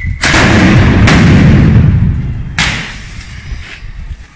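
A street firecracker battery (batteria) going off: a sudden, loud, dense run of bangs that starts just after the opening, with sharper reports about a second and two and a half seconds in, then dies away.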